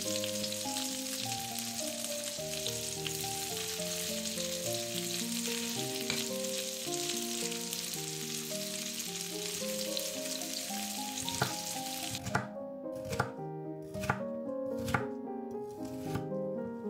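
Breaded chicken strips sizzling as they fry in hot oil in a pan. About twelve seconds in, the sizzle cuts off and a chef's knife chops a red bell pepper on a bamboo cutting board, six or so sharp knocks.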